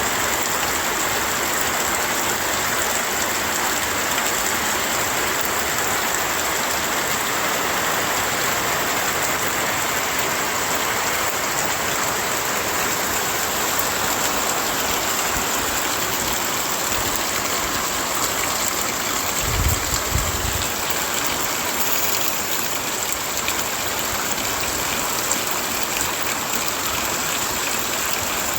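Heavy rain falling steadily, a dense even hiss of drops on surfaces. About two-thirds of the way through there is a brief low thump.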